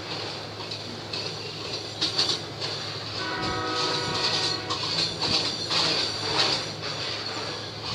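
Freight train passing with wheels and wagons clattering on the rails. A locomotive horn sounds once, about three seconds in, for roughly a second and a half.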